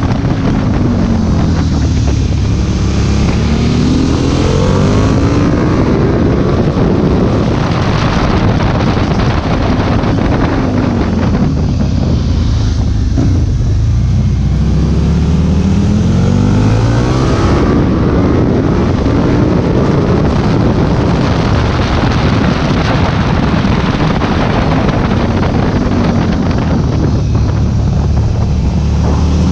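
A motorcycle engine heard from the rider's own bike while riding through a series of bends. The revs rise and fall again and again, with wind rushing over the microphone.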